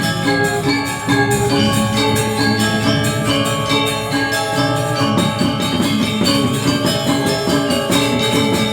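Balinese gamelan playing: bronze metallophones struck in a fast, dense rhythm, their many tones ringing over one another.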